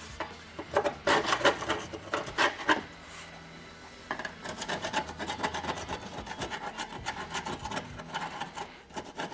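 Rusty steel body metal being scraped by hand, popping rust bubbles and flaking paint. There are several hard scraping strokes at first, a brief pause, then quicker, lighter strokes.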